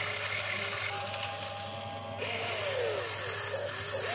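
RC excavator's small electric motors and gears whirring as it swings its upper body around, the pitch rising and falling in short sweeps.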